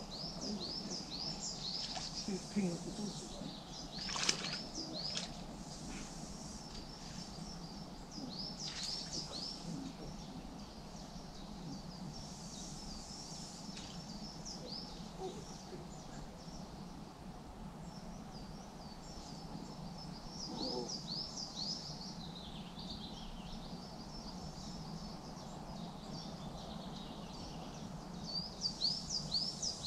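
Songbirds singing in repeated runs of short, high chirps over a steady low background rumble. One brief sharp rustle comes about four seconds in.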